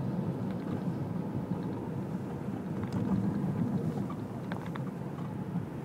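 Steady low road and engine noise of a car driving across a bridge deck, heard from inside the cabin.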